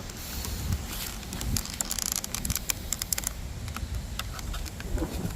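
A small flathead screwdriver prying and scraping at plastic interior door trim, giving a run of quick, light clicks and ticks that is thickest in the middle.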